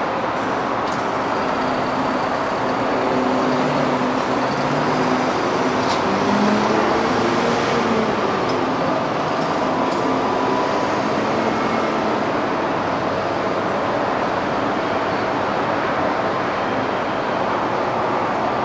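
Steady airport apron noise: a continuous rushing drone from aircraft and ground equipment, with faint hums that slide slowly up and down in pitch.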